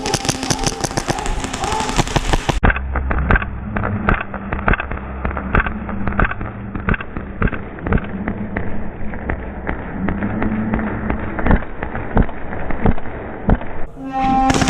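Airsoft guns firing in rapid bursts of sharp clicking pops, which go duller about two and a half seconds in.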